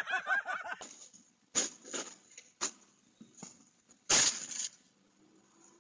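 Snow shovel knocking and scraping on a snowy wooden deck: a few short sharp scrapes, and a louder half-second scrape about four seconds in.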